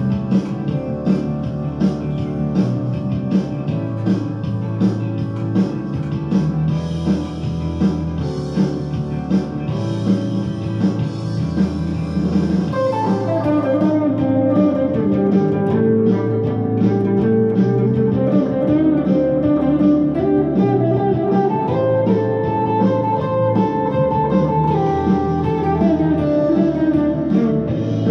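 Uptempo blues backing track, joined about halfway through by a lead solo on an electric guitar with sustained notes that bend in pitch.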